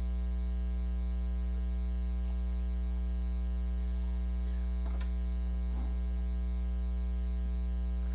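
Steady electrical mains hum through the church sound system, a low drone with a buzzy stack of evenly spaced overtones, picked up as the video playback line is brought in.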